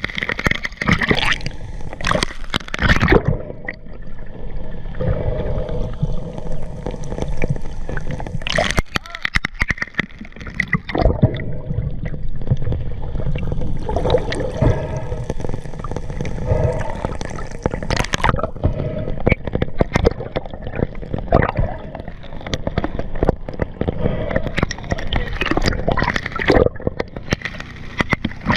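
Sea water sloshing and gurgling around a camera in the waves, with irregular splashes as it dips in and out of the water.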